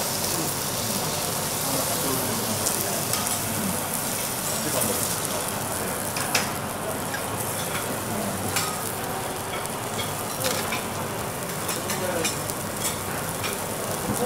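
Food sizzling steadily on a teppanyaki steel griddle, with scattered sharp clicks and taps of utensils against the hot plate.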